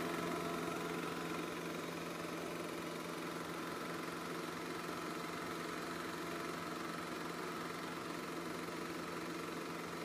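Chinon 2000GL dual-gauge 8mm cine projector running a film, its motor and film transport making a steady mechanical whir with a constant low hum.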